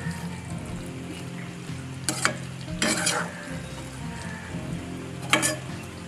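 Perforated spatula stirring thick gongura chicken curry in a hot pan, the curry sizzling, with a few louder scrapes of the spatula against the pan about two, three and five seconds in. It is the final stir-and-cook stage, after chicken masala has been mixed in.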